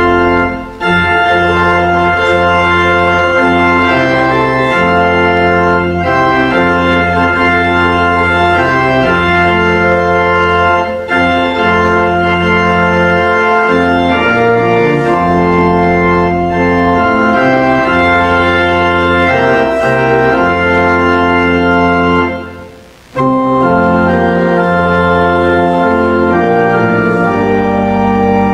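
Church organ playing slow, sustained chords. The playing breaks off briefly about 23 seconds in, then resumes.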